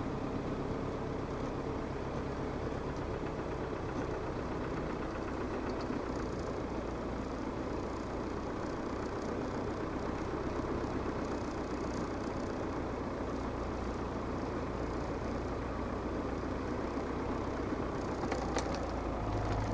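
Land Rover Defender 110's 300Tdi four-cylinder turbodiesel engine running steadily at low revs, heard from inside the cab while the vehicle creeps down a steep snow-covered slope.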